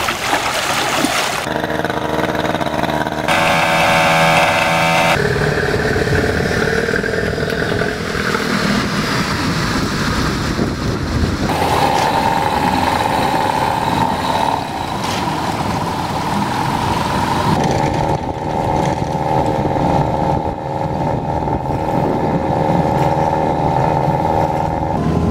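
Small Yamaha tiller outboard motor running, its pitch changing abruptly several times as it goes through different engine speeds.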